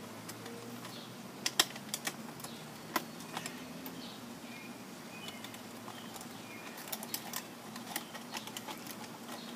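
Scattered light clicks and taps of twisted-together wires and the post-top light fixture being handled as the spliced wiring is tucked in.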